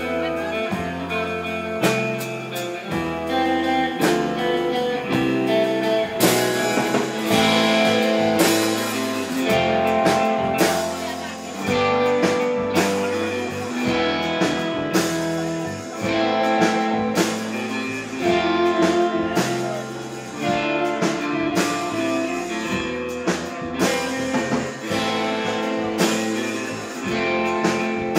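Live instrumental rautalanka band: an electric guitar plays the melody over bass and a drum kit keeping a steady beat.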